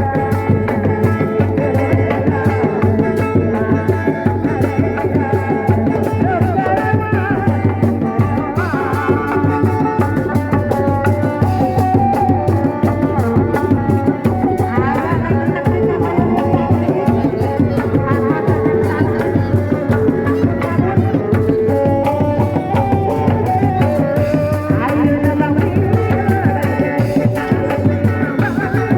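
Kuda lumping ensemble music: fast, busy hand drumming under a wavering, bending melody line, with a steady low drone beneath.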